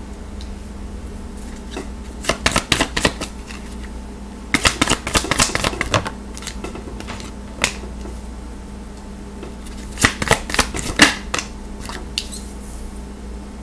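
Tarot deck being shuffled by hand, the cards flicking and slapping together in three spells of quick clicks, about two, five and ten seconds in, with single flicks between. A steady low hum runs underneath.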